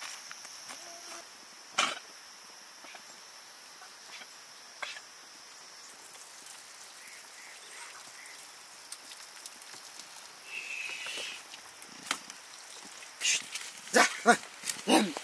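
Rural outdoor ambience: a steady high-pitched drone, a few sharp clicks, and a run of short animal calls near the end.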